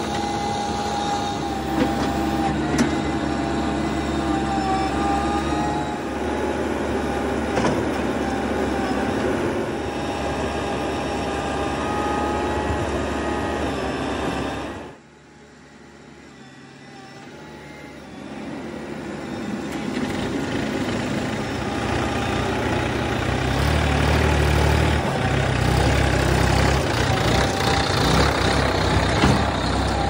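JCB 3DX backhoe loader's diesel engine working under load, with a steady whine over the engine note while it digs soil. About halfway through the sound drops away suddenly, then builds back up and runs louder toward the end as the loader works again.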